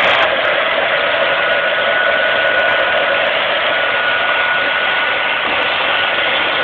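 Vacuum cleaner running steadily: a continuous loud rushing noise with a thin high whine from the motor.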